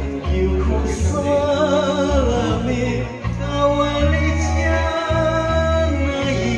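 A man singing an enka song live into a karaoke microphone over the karaoke backing track, the bass notes of the accompaniment changing about once a second beneath his held, wavering vocal lines.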